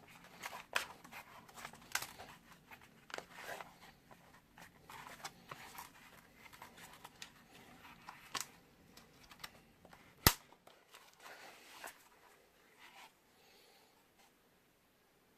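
A pistol and a holster being handled: scattered rustles and small clicks, with one sharp click about ten seconds in, then quieter handling near the end.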